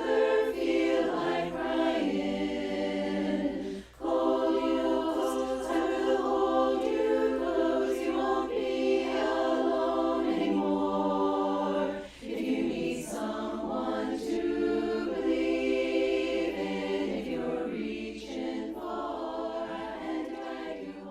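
Virtual choir of individually recorded voices mixed together, singing held chords, with two short breaths in the sound about 4 and 12 seconds in and a gradual fade near the end.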